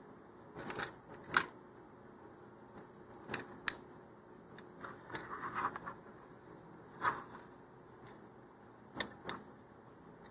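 Decal backing paper crinkling and fingers pressing and smoothing a peel-and-stick decal onto a paper model-rocket body tube: scattered short crackles and ticks, with a brief run of rustling about five seconds in.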